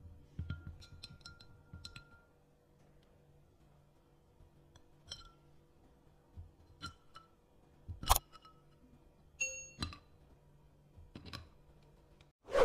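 A wooden stirring stick clinking lightly against a tall drinking glass as a drink is stirred, with a faint ring from the glass. Then ice cubes are dropped into the glass one by one with tongs, giving several sharp clinks, the loudest about eight seconds in.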